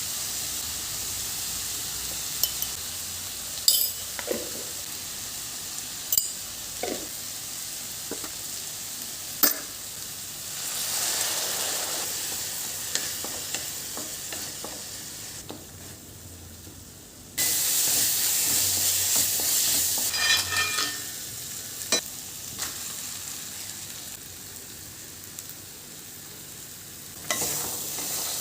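Food frying and sizzling in a pan, with a spatula scraping and knocking against the pan now and then. The sizzle fades a little, then comes back suddenly louder about two-thirds of the way through.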